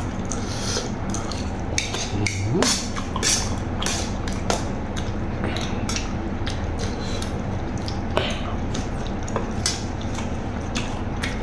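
Eating sounds: a metal spoon clinking and scraping against a metal tray in scattered short clicks, with chewing in between, over a steady low hum.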